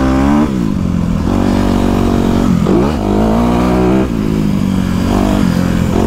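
Motocross bike engine running under way, revving up and easing off as the throttle is rolled off and on; the pitch dips and climbs back three times, about half a second in, just before halfway and about two-thirds through.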